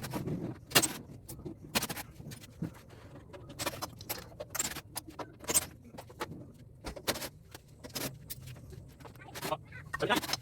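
Irregular metal clinks and knocks from hand tools and loose parts as an air-conditioner condenser unit is taken apart.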